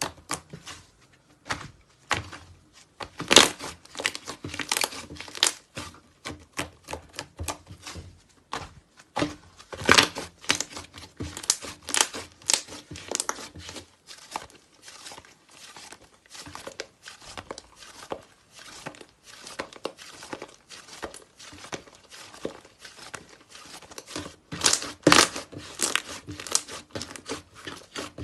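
Slime being squeezed and worked by hand, giving a dense, irregular run of crackling clicks and pops, with louder clusters now and then.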